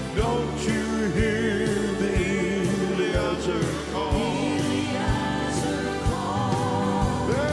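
Live gospel music: a male lead singer with vibrato over piano, bass and drums keeping a steady beat of about one hit a second.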